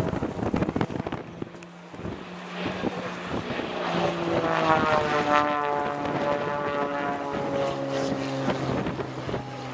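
Extra 260 aerobatic monoplane's propeller engine during a display, its note climbing to a loud peak around the middle and then falling steadily in pitch.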